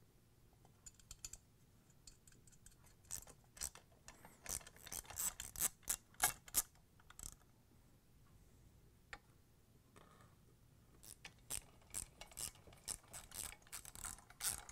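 3/8-inch ratchet socket wrench clicking in quick runs while nuts are run down onto a washer motor's mount carriage, with a pause of a few seconds in the middle.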